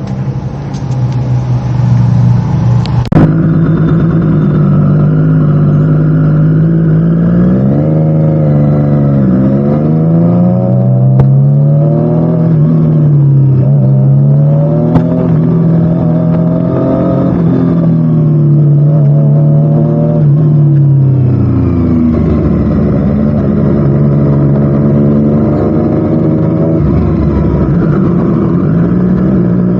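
Triumph Street Triple RS inline-three engine through a Spark slip-on exhaust, idling, then revved up and down over and over from about eight seconds in. It drops back to a steady idle past twenty seconds and rises again near the end.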